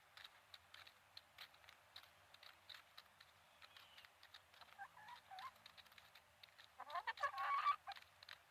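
Hens pecking at broken-up pumpkin, a steady run of small pecking taps, with a few soft clucks about five seconds in and a louder burst of clucking about seven seconds in.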